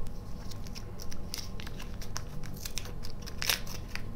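A wrapped chocolate candy being unwrapped by hand: the wrapper crinkling and crackling in quick, irregular crackles, loudest about three and a half seconds in.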